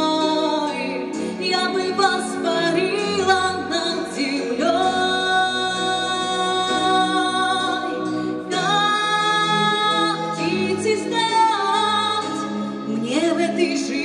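A woman singing a song into a microphone, with steady low accompaniment notes beneath; she holds two long notes through the middle.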